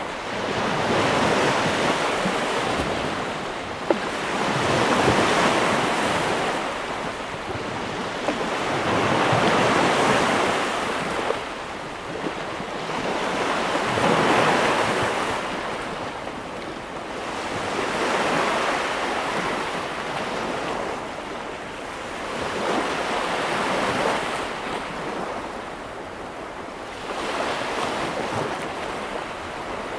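Sea waves breaking on a shore, the surf swelling and fading every four to five seconds.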